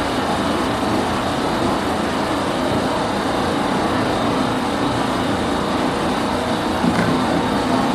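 Running noise of a JR 209-500 series electric train car at speed: steady wheel-and-rail rumble with a steady hum from the bogie. This car's abnormal noise is, in the recordist's view, most likely a mechanical bearing fault rather than an electrical one.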